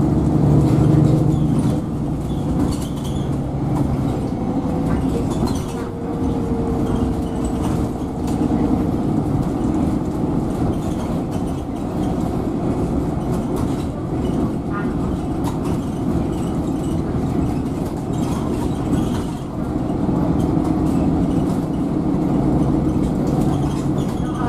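Cabin of a MAN NL330 Lion's City 12C city bus under way: the engine and drivetrain run with steady road and tyre noise. A faint steady whine sounds for a few seconds about a quarter of the way in.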